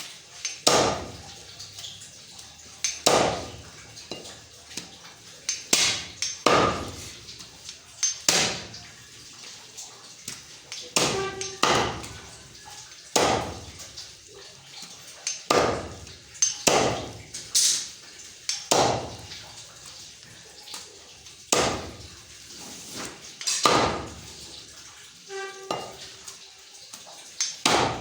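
Butcher's cleaver chopping through goat leg meat and bone on a chopping block: repeated sharp strikes, roughly one every second or two, a few with a brief metallic ring.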